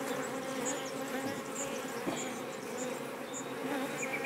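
Honeybees buzzing on and around an open hive frame: a steady, even hum.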